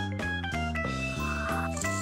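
Background music: a bouncy tune of pitched notes over a regular beat of bass notes.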